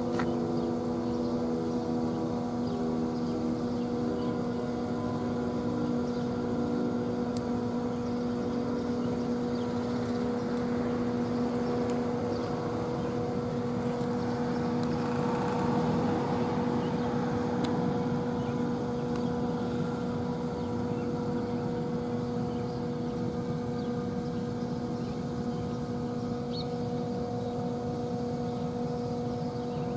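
Sentry 14V outdoor warning siren sounding its steady alert tone in a routine test, holding one pitch with no rise or fall. A brief rush of noise swells under it around the middle.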